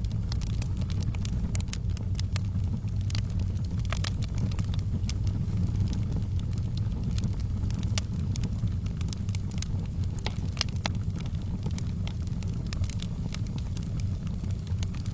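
Wood fire in a fireplace crackling, with frequent irregular sharp pops and snaps over a steady low rumble.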